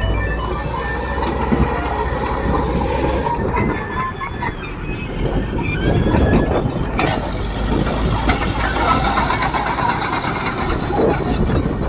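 Caterpillar D4H crawler bulldozer working, its diesel engine running under the steady squeal and clatter of its steel tracks.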